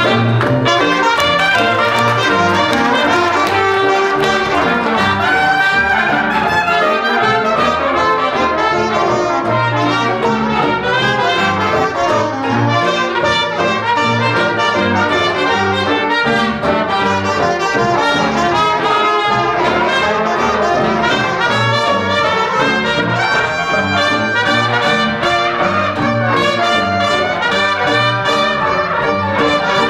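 Dixieland jazz band playing an ensemble chorus, the cornet leading over the trombone, reed, string bass, banjo and piano.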